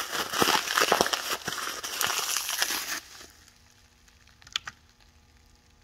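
Clear plastic hand stretch film, a used wad of 40-micron Velocity Pro film, being crumpled and balled up by hand. It crackles densely and stops abruptly about three seconds in. A couple of faint clicks follow, from the digital scale's buttons being pressed.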